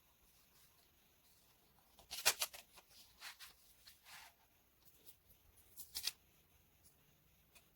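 Paper being handled: short crisp rustles and light clicks in a few clusters, about two seconds in, again around three to four seconds with a brief sliding rustle, and near six seconds.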